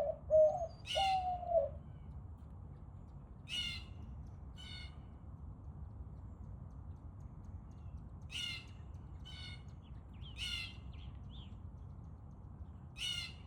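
White-winged dove cooing in a short rhythmic run of low notes that stops under two seconds in. Another bird's harsh calls follow, mostly in pairs about a second apart, several times through the rest, over a steady low rumble.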